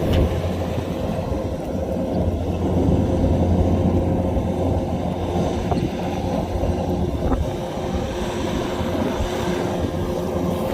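Kubota DC-105X combine harvester's diesel engine running steadily under work, a continuous machine drone.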